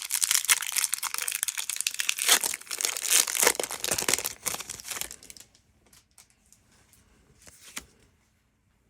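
Foil wrapper of a Pokémon card booster pack being crinkled and torn open, a dense crackling for about five seconds, then a few separate crinkles before it stops.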